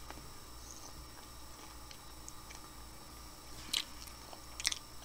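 A person chewing a hard-shell taco filled with Salisbury steak and mac and cheese, mostly quiet, with a couple of short, sharp crackles in the last second and a half.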